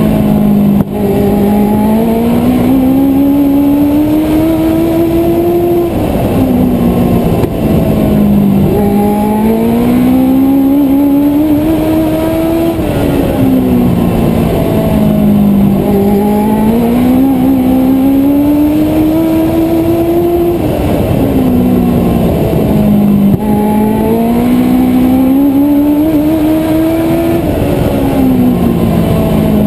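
Race car engine heard on board at full throttle, its pitch climbing steadily down each straight, then dropping sharply as the driver lifts for the turn. This repeats about every seven seconds, lap after lap.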